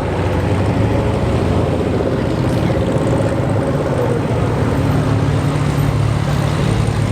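A car engine running at idle, a steady low hum that holds its pitch.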